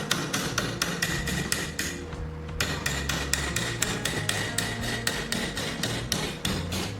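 Quick, even hammer taps, about four or five a second, with a short pause a little over two seconds in, over background music.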